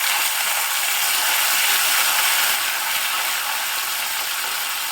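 Ginger paste and ground spices sizzling in hot mustard oil in a kadai, a steady crackling hiss that eases slightly after about two and a half seconds.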